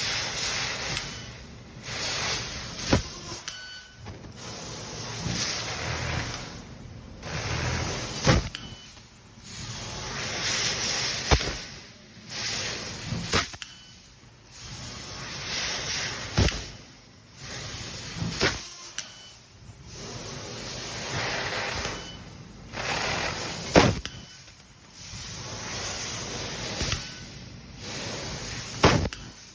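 Fiber laser cutter working in short repeated cycles: assist gas hisses for about two to three seconds, drops off briefly, then starts again, with a sharp click or pop at several of the changes. The uploader takes this stop-start cutting as the sign of a follow distance set too high in the CypCut control software.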